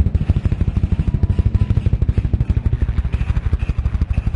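Piston-engined warbird flying low past, its engine and propeller giving a loud, rapid, even throbbing.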